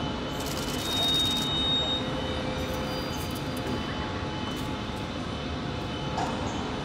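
Steady background noise of a large aircraft factory hall, with faint steady hum tones running through it. A brief high whistle sounds about a second in.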